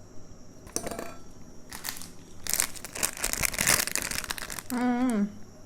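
Plastic packaging crinkling and rustling as it is handled, in irregular bursts over most of the stretch. Near the end comes a short voiced sound that falls in pitch.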